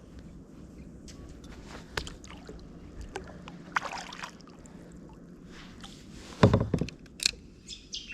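Handling noises aboard a fishing kayak: scattered light clicks and knocks, with a loud low thump about six and a half seconds in.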